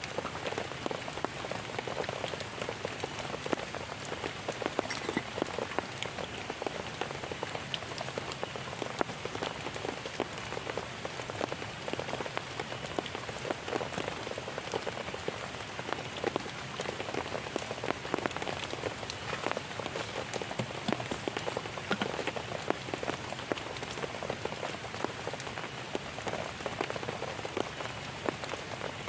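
Heavy rain falling steadily on a tent, a dense, even patter of many drops.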